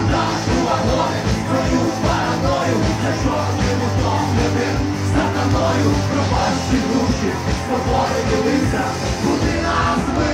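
A rock band playing loudly live, with drums, electric guitar and keyboard.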